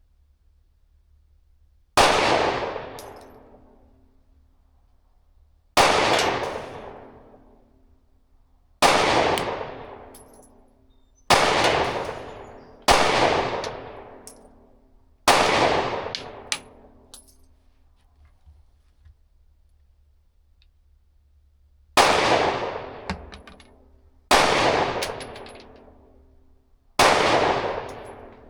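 Glock 43X 9mm pistol fired slowly in single shots, nine in all, spaced two to four seconds apart with a pause of about six seconds after the sixth. Each shot is a sharp crack followed by an echo that fades over a second or more.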